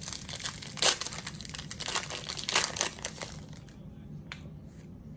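Wrapper of a Donruss baseball card pack crinkling and tearing as it is ripped open by hand, a run of sharp crackles that is loudest about a second in. The crackling dies down to a faint rustle after about three seconds.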